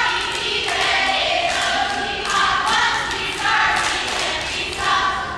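Cheerleading squad of girls chanting a cheer in unison, one shouted phrase after another, each about a second long.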